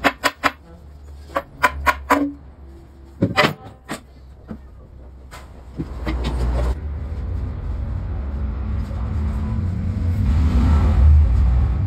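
Several sharp metallic clanks and knocks in the first four seconds, as of metal engine parts being handled and struck. From about six seconds in, a steady low rumble takes over, like a machine running in the workshop.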